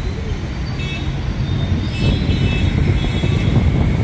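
Road traffic and the rumble of the moving double-decker bus, heard from its open top deck. Short, high, steady tones sound about a second in and again for about a second and a half from around two seconds in.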